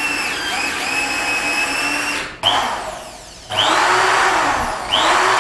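Electric power tool motors being switched on and run in short spells. A steady whine runs until just past two seconds, then there are three more starts, each with a quick rising spin-up, about two and a half, three and a half and five seconds in. The new tools are being test-run and are working properly.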